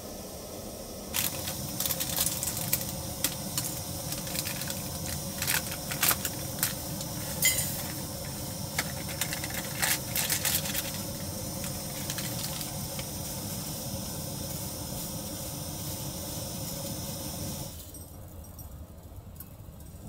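Food sizzling and crackling as it cooks: a loud hiss with sharp pops that starts about a second in and stops suddenly near the end.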